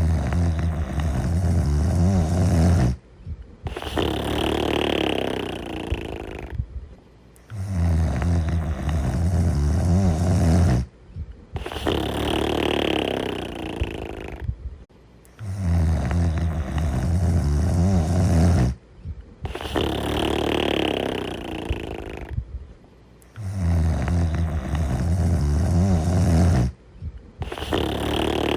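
Steady snoring in a slow, regular rhythm: a low rattling snore, then a breathy, hissing breath and a short pause, repeating about every eight seconds, four times over.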